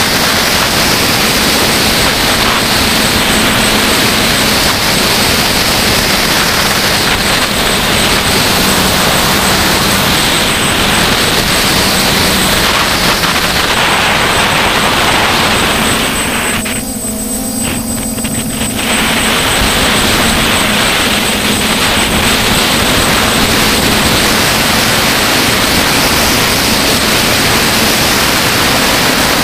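DJI Flamewheel F550 hexacopter's six motors and propellers running steadily in flight, a droning hum under a loud rushing noise, heard from the camera mounted on the craft. A little past the middle the sound drops and thins for about two seconds, then comes back to full level.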